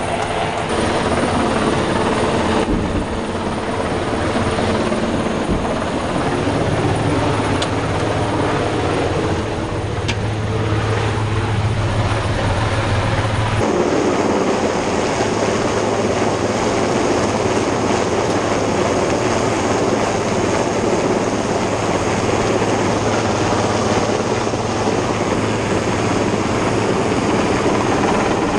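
Rescue helicopter hovering low over a boat's deck: steady, loud rotor and engine noise mixed with the rush of rotor downwash. The sound shifts abruptly about halfway through.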